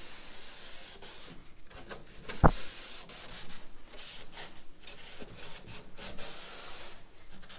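A rag rubbing back and forth along the wooden edge of a dinghy hull, wiping it down with denatured alcohol. There is one sharp knock about two and a half seconds in.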